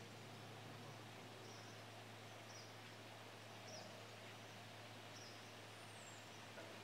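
Near silence: faint outdoor ambience with a steady low hum, and a faint high chirp repeating about once a second.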